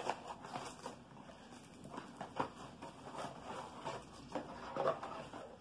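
Irregular rustling and light clicks of packaging being handled as a smart security camera and its cable are pulled out of their wrapping and box.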